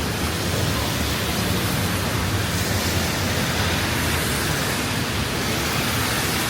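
Heavy rain falling, a loud steady hiss of downpour with no breaks.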